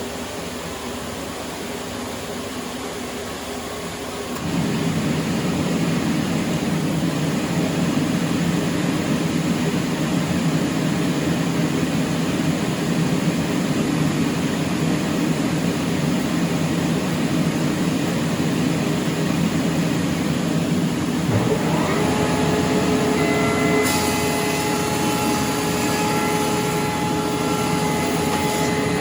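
Large industrial thickness planer running, growing suddenly louder about four seconds in as a board feeds through and the cutterhead takes its cut. Near the end a steady whine joins, with a hiss for a few seconds.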